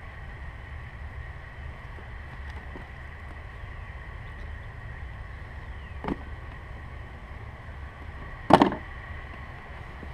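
Hands working on engine-bay vacuum hoses and plastic parts make two sharp clacks, a small one about six seconds in and a louder one about two and a half seconds later, over a steady low background rumble with a faint whine.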